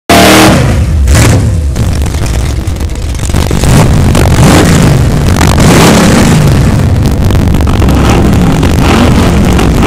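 Drag-race car engines running loud at the starting line, idling and blipping the throttle so the pitch rises and falls, as a blue Chevrolet Camaro and a white Plymouth station wagon stage to race.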